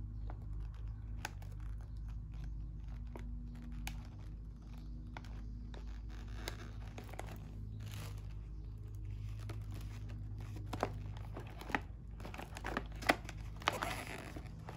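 Stiff glossy photo-paper chip bag rustling and crinkling as it is squeezed and lined up by hand, with scattered small clicks and taps; a few sharper taps come near the end.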